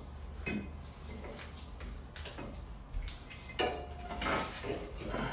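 Scattered metal clinks and knocks, the loudest about four seconds in, as the old, worn rear axle of a 2004 Yamaha Grizzly 660 is pulled and worked out of the wheel hub.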